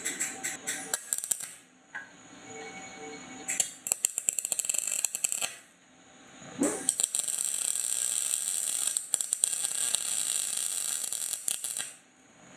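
MIG welder arc crackling as it tack-welds the joint in a ring of half-inch EMT conduit: three bursts, two short ones and a last of about five seconds that stops suddenly.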